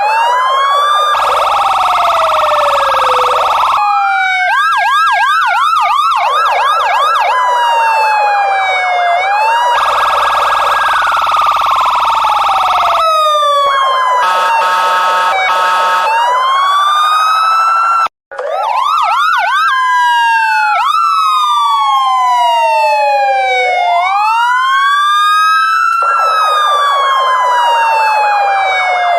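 Electronic police car siren cycling through its patterns, often layered: slow wails rising and falling, fast yelping sweeps, a stretch that steps between two tones, and a steady buzzy tone. It cuts out briefly about 18 seconds in.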